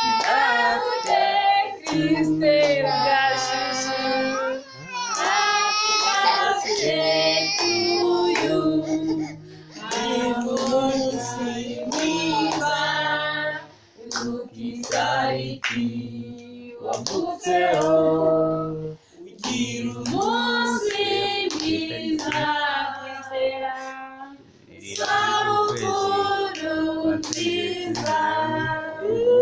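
Voices singing a song together, with hands clapping along.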